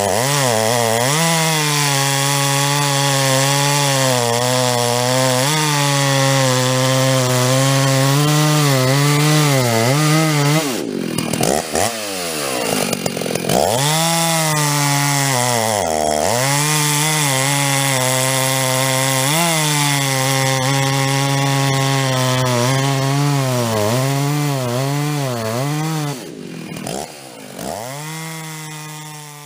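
Muffler-modded Jonsered 920 big-bore two-stroke chainsaw cutting through a log at full throttle. The engine note keeps sagging under load and picking back up, with brief breaks around the middle as the revs drop and come back, and it winds down near the end. The saw's semi-chisel chain has its rakers filed low, which makes it grabby and slow in the cut.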